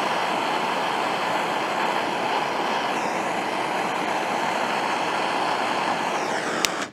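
Handheld gas torch flame hissing steadily while heating an aluminum outboard skeg to melt in aluminum filler rod. Near the end it stops abruptly after a click.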